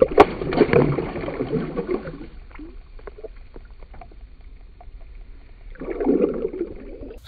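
A released yellow bass kicking out of a hand into lake water with a sharp splash and about two seconds of sloshing, then a second, shorter splash of water around the hand near the end.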